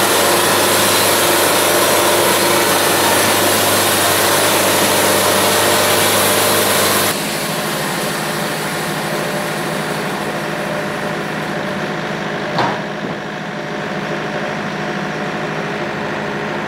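Portable band sawmill's engine running steadily, louder and noisier for about the first seven seconds before it drops abruptly to a quieter, even run. A single sharp knock comes about twelve and a half seconds in.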